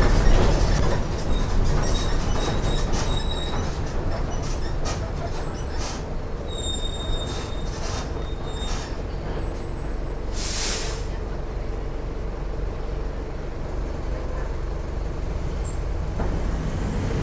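Mercedes-Benz OF 1418 bus running with its diesel engine humming steadily, the body rattling and giving short high squeaks, and a brief burst of hiss about ten seconds in.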